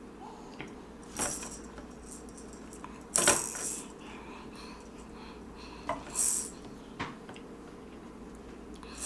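Small metal jingles clattering as a baby shakes and bangs a jingling object in four short bursts, the loudest about three seconds in.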